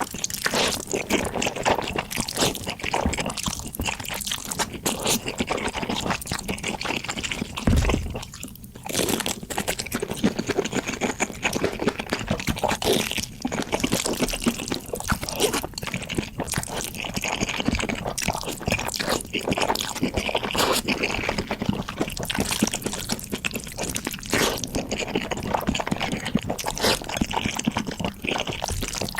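Close-miked eating sounds played at double speed: rapid wet chewing and slurping, with some crunching. There is a brief lull about eight and a half seconds in.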